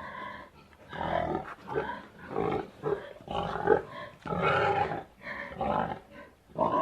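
Pig grunting: a run of about eight short calls, each about half a second or less, with brief gaps between.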